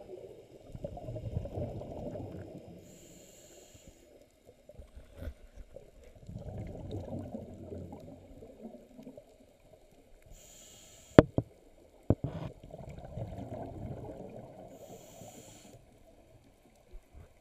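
Scuba regulator breathing heard underwater through a camera housing: short hissing inhalations and long gurgling, bubbling exhalations, about three breaths. Two sharp knocks come a little past the middle.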